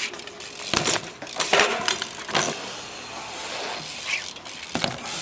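BMX bike riding a concrete skatepark bowl: tyres rolling on the concrete with several sharp knocks and clanks of the bike hitting the ground.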